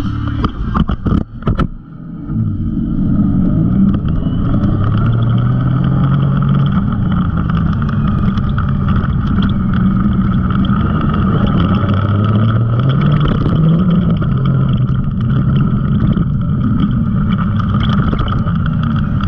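Side-by-side UTV engine running as it drives a dirt trail, its pitch rising and falling with the throttle. A few sharp knocks come in the first two seconds.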